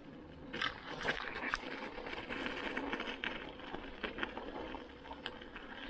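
Electric mountain bike tyres rolling over ice-glazed gravel, crunching and crackling, with scattered sharp clicks and rattles from the bike over a faint steady hum.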